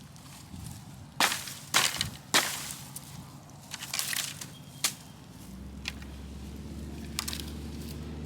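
Sticks snapping, five sharp cracks spread over the first five seconds. A low steady hum comes in about halfway through.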